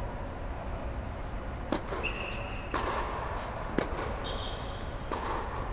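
Tennis ball struck with rackets in a rally, three sharp pops about a second apart starting near two seconds in, with short high squeaks of tennis shoes on the hard court between the shots, over a steady low background hum.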